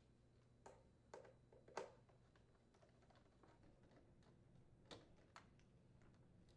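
A few faint, short clicks and taps, about five in all, the loudest a little under two seconds in, over near silence: a Torx screwdriver and screws being handled as the door latch mounting screws are taken out of the dishwasher door.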